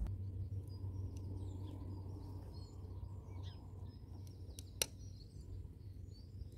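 One sharp snip of hoof nippers cutting through a pony's hoof about five seconds in, over small birds chirping and a low steady background hum.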